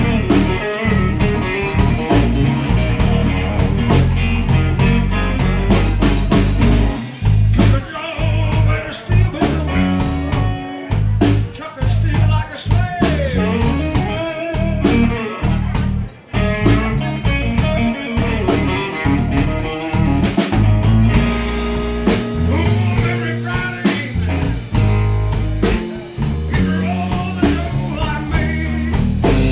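Blues-rock band playing: guitar lines over bass and drums with a steady beat.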